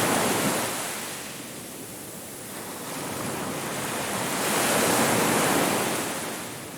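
Ocean surf on a beach: a wave's wash fades away, then the next wave builds and breaks about four to five seconds in before receding.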